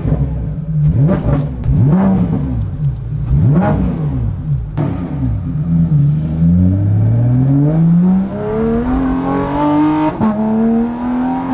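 Porsche 911 GT3 RS's naturally aspirated flat-six through a Dundon Motorsport Inconel full exhaust, heard from inside the cabin. The revs rise and fall a few times, then climb in one long pull under acceleration. About ten seconds in they drop for an upshift and start climbing again.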